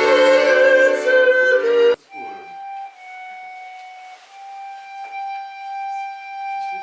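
Instrumental music: a loud, full passage breaks off abruptly about two seconds in, and a single high note is then held quietly.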